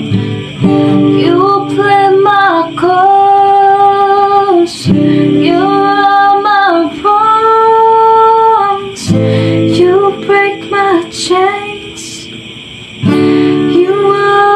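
A song with a woman singing long held notes over strummed acoustic guitar, dropping quieter for a moment about twelve seconds in.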